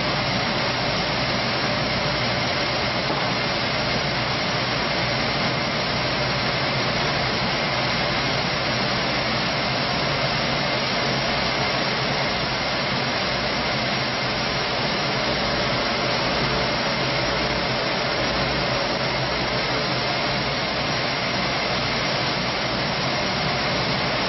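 Circular looms running, weaving polypropylene tape yarn into tubular fabric for woven sacks: a steady, even mechanical noise with a faint high whine.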